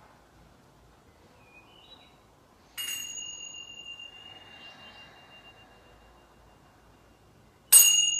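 Small handheld meditation chime struck twice, about five seconds apart, each strike a bright, clear ring that hangs on and fades slowly; the second strike is louder. It marks the end of a timed yin yoga hold.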